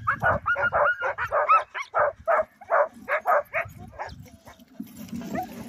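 A harnessed team of Alaskan huskies, sled dogs, barking and yipping in a quick run of about three short calls a second, some rising in pitch. The barking stops near the end, and a steady rushing noise sets in as the sled starts to move.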